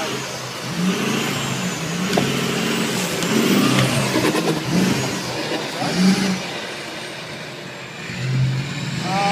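Off-road pickup truck engine revving in bursts, rising and falling as the truck is driven over rough dirt, with scattered knocks and clatter from the truck.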